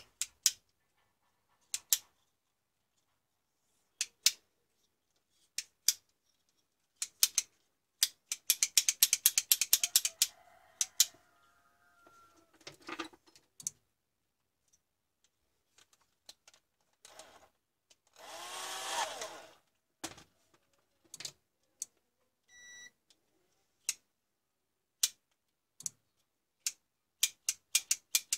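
Sharp plastic clicks and taps from an angle grinder's trigger switch being worked and multimeter probes handled against it, with a fast run of clicks about eight seconds in. A rustling noise swells for about two seconds near the middle, and a short electronic beep sounds later on.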